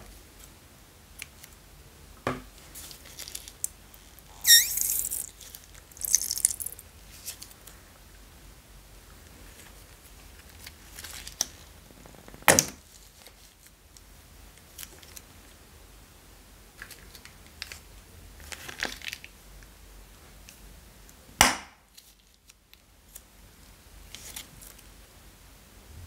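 Soft clay and slime being squeezed out of small plastic bags into a plastic tub: irregular squelching and bag-crinkling handling sounds. There are two short hissing rushes about five and six seconds in, and a few sharp clicks, the loudest about twelve and twenty-one seconds in.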